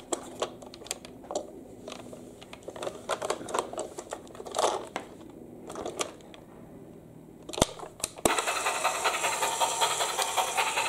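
Hard plastic toy train being handled and turned over: scattered clicks and knocks of plastic parts. About eight seconds in, a louder steady hiss starts suddenly and keeps going.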